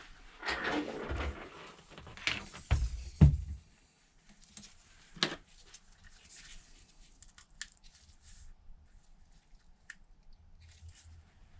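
Small tools and phone parts handled on a workbench: a rustle, then a few sharp clicks and knocks, the loudest about three seconds in, followed by faint scattered ticks.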